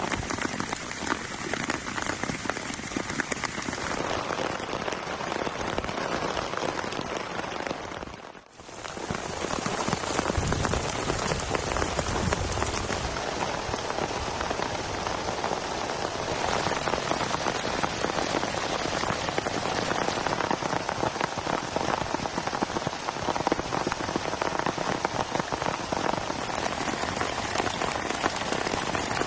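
Heavy rain falling, a dense steady patter of drops. It dips away briefly about eight seconds in, then comes back just as strong.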